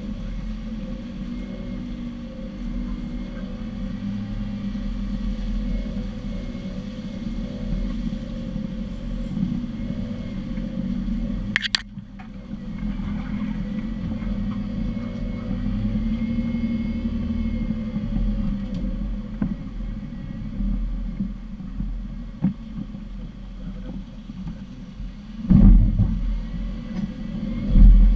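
Off-road 4x4's engine running steadily at low speed, heard from a camera on its bonnet while it crawls along a rutted mud track. There is a sharp click about twelve seconds in, and two heavy low thumps near the end.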